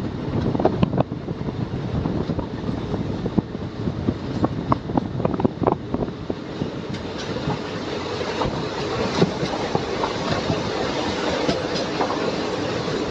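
Pune–Amravati Express passenger train running on the track: a steady rumble and rush with the wheels clacking over rail joints. The clacks come thickest in the first half, then give way to a steadier rush.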